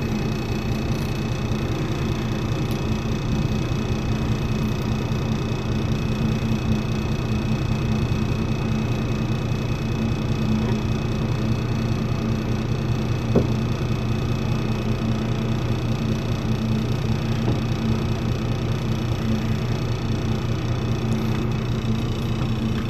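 Boat engine idling: a steady low hum with an even drone, and one short click about halfway through.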